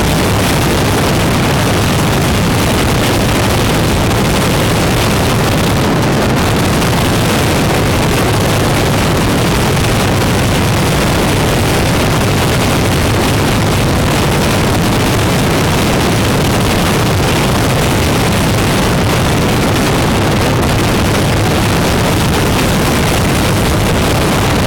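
Motorcycle riding at a steady cruising speed: constant wind rush on the microphone mixed with the bike's engine and road noise. The sound is loud and unchanging, heaviest in the low end.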